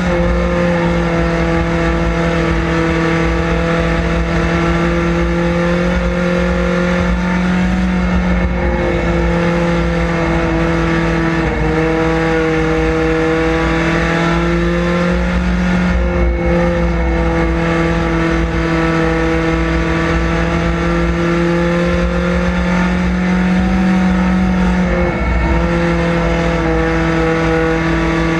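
Chevrolet Cavalier street stock's engine under race power, heard from inside the cockpit. It holds a steady high pitch with a few brief dips and recoveries along the way.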